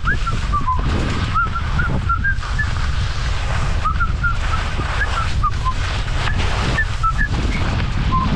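Skis sliding and scraping over soft spring snow with wind rushing on the microphone, overlaid by many short squeaky chirps that glide up or down, coming in small clusters.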